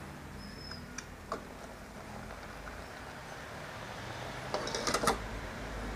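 Glass pot lid knocking and clinking against a stainless steel pot as it is handled and lifted off: a couple of single clicks, then a quick cluster of clinks near the end, over a steady low hiss.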